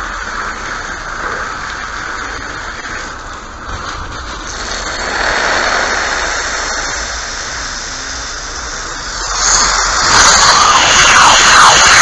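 Water spraying out with a steady, high hiss as hot water is flushed out of the line. It gets louder about ten seconds in.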